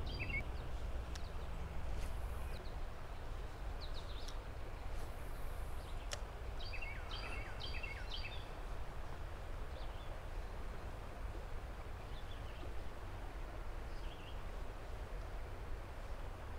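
Outdoor ambience: a steady low rumble with songbirds calling now and then, including a quick run of about five chirps around seven seconds in, and a single sharp click just before it.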